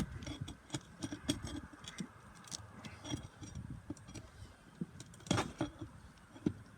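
Irregular clicks, taps and light scraping of hand tools working against asphalt roof shingles and their nails during a shingle repair, with a louder knock about five seconds in.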